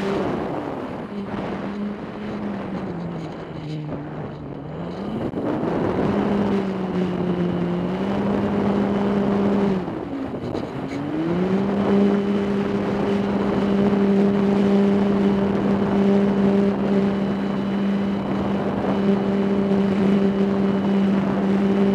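RC airplane's motor and propeller droning, heard from a camera mounted on the plane, with wind rushing over the microphone. The pitch falls over the first few seconds, climbs again about five seconds in, dips briefly around ten seconds, then holds steady.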